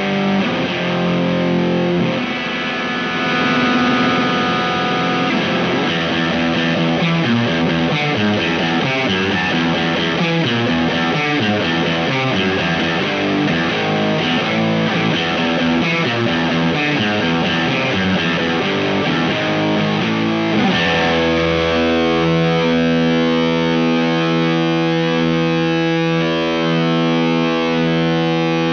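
Fano Omnis MG6 electric guitar with P90 pickup, played through the Space Sounds Galactic Fuzz pedal: a distorted run of quick, changing notes and riffs. About three-quarters of the way in it switches to chords that are struck and left ringing with long sustain.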